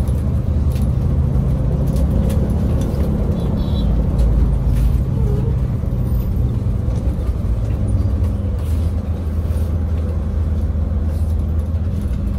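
Bus engine running steadily while under way, heard from inside the cabin, with a low drone and road noise.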